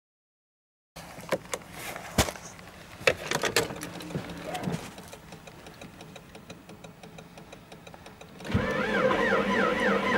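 A few sharp clicks and knocks, then from about eight and a half seconds in the starter motor of a Volvo 850 T5-R's turbocharged five-cylinder cranking the engine on a cold start without preheating, its whine rising and falling evenly with each compression stroke.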